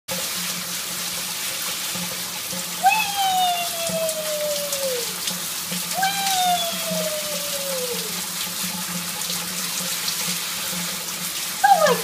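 Shower water spraying steadily, with two long calls that slide down in pitch, each lasting about two seconds, about three and six seconds in, and quicker rising and falling calls just before the end.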